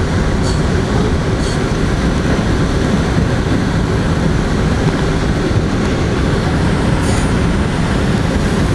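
Metro-North M2 electric multiple-unit railcar running along straight track, heard from inside the lead car: a steady, loud running noise of wheels on rail, with a few faint high clicks.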